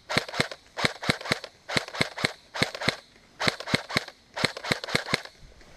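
Airsoft electric rifle firing in short bursts: sharp snapping shots in about six groups of three to five, roughly one group a second, laid down as suppressing fire.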